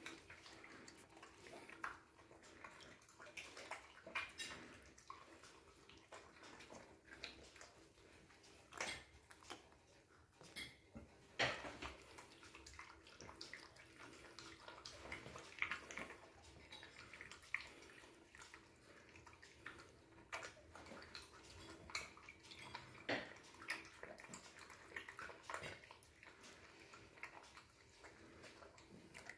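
Small dog eating from a china plate: faint, irregular wet chewing and licking, with scattered sharp clicks of teeth and food.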